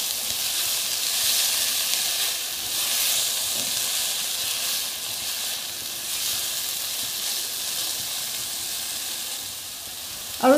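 Minced beef, onion and diced tomato sizzling in a non-stick pot, stirred with a silicone spatula. The stirring stops near the end, leaving the steady sizzle.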